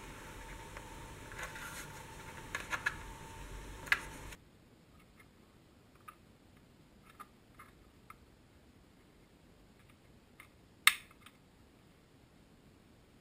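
Plastic sporks handled in the hands: scattered light clicks and taps, with one sharp click about eleven seconds in. A faint steady hum lies under the first four seconds and then drops away.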